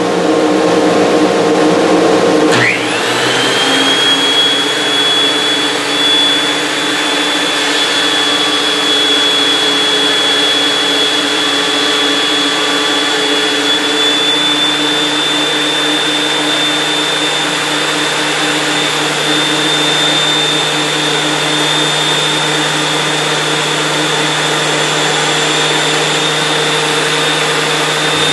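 Oliver 1044 benchtop planer with a Shelix helical cutterhead starting up about 2.5 s in: a quick rising whine that settles into a steady high-pitched run. A dust collector hums steadily underneath throughout.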